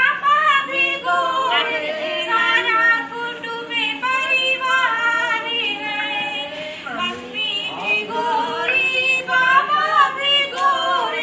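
Women singing a folk song together, unaccompanied, in long wavering held notes.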